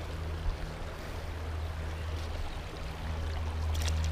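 Shallow creek water running steadily over rocks, with a steady low hum underneath.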